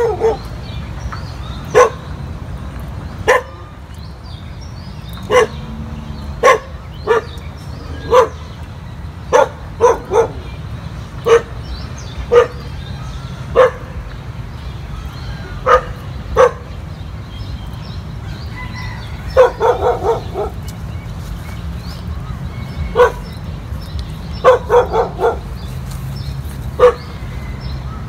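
A dog barking repeatedly: single barks every second or so, then quicker runs of four or five barks in the second half. A steady low rumble runs underneath.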